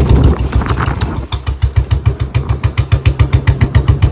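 Royal Enfield Bullet 350's single-cylinder engine thumping out an even, rapid beat while riding in top gear, its exhaust tuned for a heavy sound. The beat drops away briefly about a second in, then carries on at the same pace.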